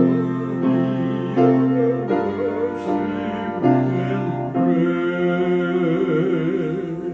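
Piano playing a slow hymn with singing voices, sustained chords changing every second or so.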